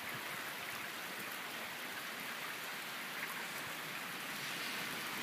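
Steady rain falling, a constant hiss with scattered faint drop ticks.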